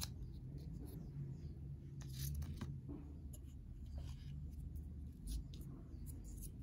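Light clicks, taps and brief rustles of cardboard and plastic packaging being handled: the small ear-tip holder set down and the coiled charging cable in its paper wrap lifted out of the box. The sounds come scattered, with short rustles about two seconds in and again near four and six seconds.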